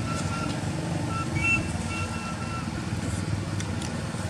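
Steady low rumble of a vehicle engine running, with short high-pitched tones sounding several times in the first three seconds.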